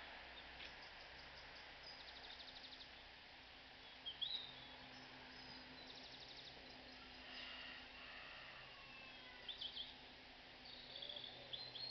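Faint outdoor ambience: small birds chirping and trilling now and then, with a short loud chirp about four seconds in and more calls near the end, over a steady background hiss and a low hum.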